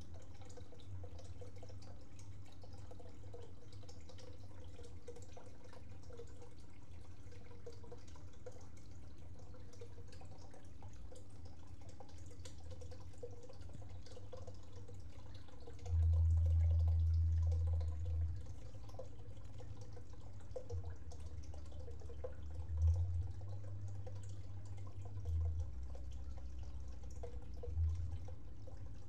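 A dwarf hamster nibbling food and shuffling in wood-shaving bedding, heard as faint small ticks and rustles over a steady low hum. About halfway through there is a loud low rumble lasting about two seconds, and there are a few shorter low bumps later.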